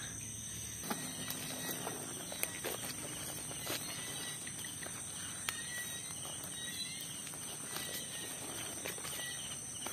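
Night insects trilling steadily at a high pitch, with faint short chirps and a few scattered soft clicks and rustles.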